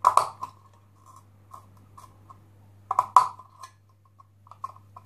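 Scissors snipping slits into the thin sheet metal of a tin can: a sharp cut near the start and a double cut about three seconds in, with fainter clicks between.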